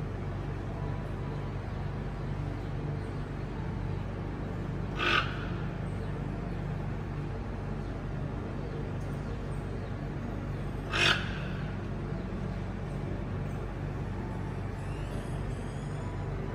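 Steady low mechanical hum with two short, sharp sounds about six seconds apart.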